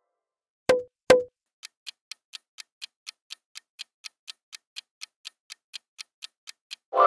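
Quiz countdown-timer sound effect: two sharp pops, then steady clock-like ticking at about four ticks a second. A musical chime cuts in at the very end.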